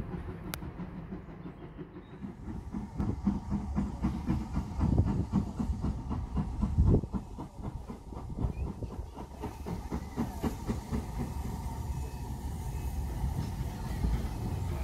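Steam locomotive and its coaches running into a station, a low rumble with a rhythmic beat of wheels over the rail joints that is loudest midway.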